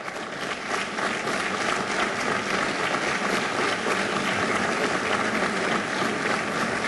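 Audience applauding steadily: a sustained round of clapping from a large crowd.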